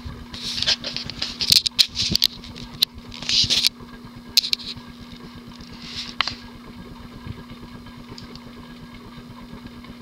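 Hunter Embassy ceiling fan's 172x12 motor running on medium speed: a steady hum, with clicking and clunking from its well-worn bearings, busiest in the first few seconds.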